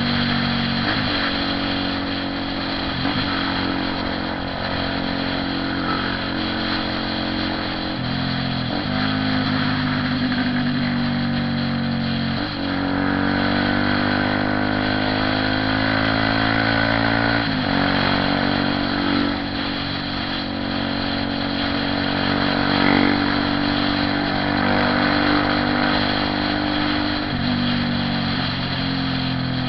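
Honda CB 300R motorcycle's single-cylinder engine running on the move. Its pitch climbs and then drops in steps several times as it goes through the gears.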